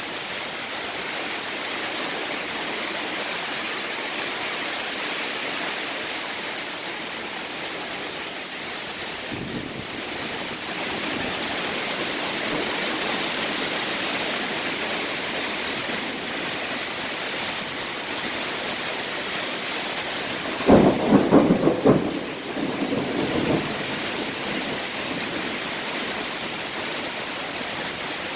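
Steady rain falling, a continuous even hiss. About two-thirds of the way through comes a louder burst lasting about a second, followed by a weaker one.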